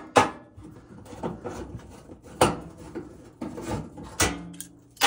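Phillips screwdriver working screws out of a stainless steel oven back panel: a rough rubbing and scraping, broken by several sharp metallic clicks, four of them louder than the rest.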